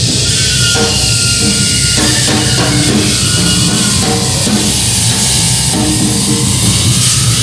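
Loud live noise music: a dense wash of noise with repeated percussive hits and a few held and sliding tones over it.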